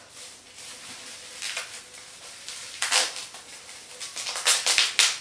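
Packaging rustling and crinkling as an item is unwrapped by hand, with a quick run of louder crinkles near the end.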